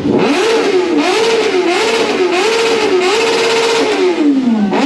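A motorcycle engine being revved: the pitch climbs right at the start, bobs up and down in quick throttle blips, holds briefly, then drops away near the end.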